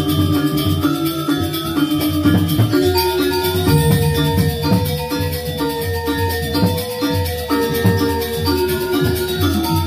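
Balinese gamelan playing: tuned metal percussion carries a stepping melody over busy cymbal and drum rhythm.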